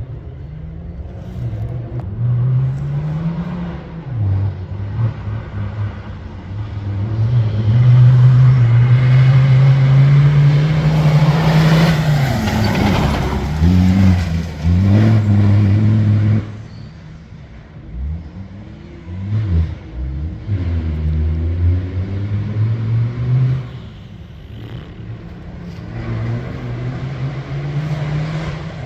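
Competitive safari off-road racing vehicle's engine revving hard, its pitch climbing and dropping again and again with throttle and gear changes. It is loudest in the first half, with a swept stretch around the middle as it comes closest, then runs lower and quieter.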